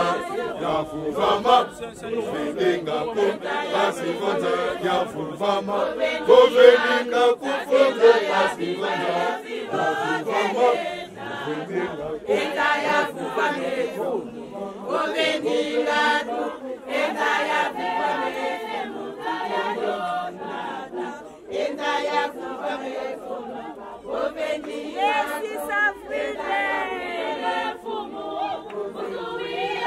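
A large group of Kimbanguist church members, men and women, singing together in a chant-like choral song as they march.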